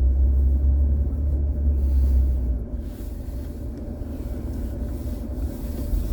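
Vehicle driving slowly along a snow-covered track, a steady low engine and road rumble that eases off about two and a half seconds in.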